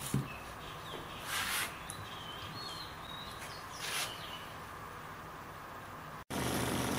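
Quiet hand work on wet carbon fiber cloth: a light knock at the start and two brief scraping rustles as a plastic stick works epoxy into the weave, with faint high chirps in the background. Near the end it cuts abruptly to a small vacuum pump running with a steady hum.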